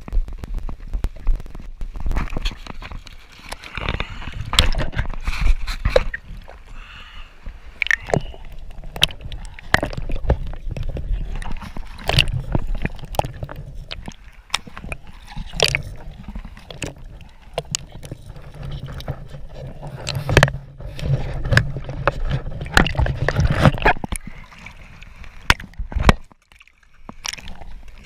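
Sea water sloshing and splashing against a GoPro camera housing held at the water surface, with many sharp knocks and a low rumble as the camera bobs in and out of the water. The sound drops out briefly near the end.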